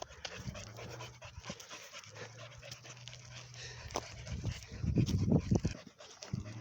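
A dog panting, growing louder for a moment about five seconds in.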